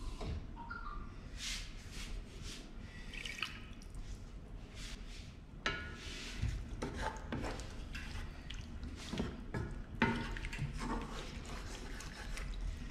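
Wooden spoon stirring a cream sauce in a frying pan: irregular wet sloshing strokes, with the spoon scraping across the pan bottom.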